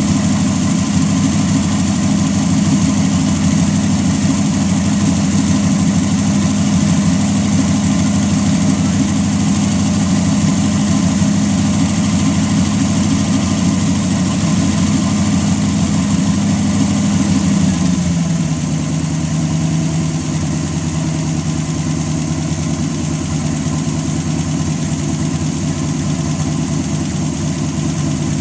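A 320-cubic-inch Buick straight-eight racing engine running steadily at a fast idle; about two-thirds of the way through, its speed drops and it settles into a slower, even idle.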